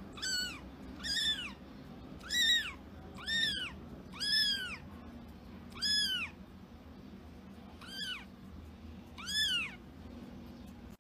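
A young kitten meowing over and over: about eight short, high-pitched mews, each rising then falling in pitch, roughly one a second, with a longer pause partway through.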